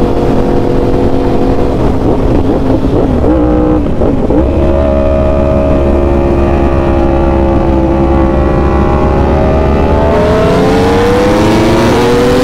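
Sportbike engine under hard acceleration in a roll race, its revs climbing steadily and then faster near the end, with a brief drop about a second before the end as it shifts up.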